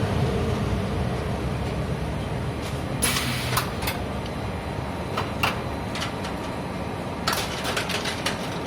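Textile factory machinery running with a steady noise, with scattered sharp clicks and clacks about three seconds in and in a quick run near the end.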